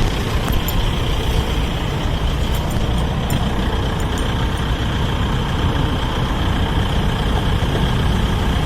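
Steady road-vehicle engine and traffic noise: an unbroken low rumble with a faint, steady high-pitched tone over it.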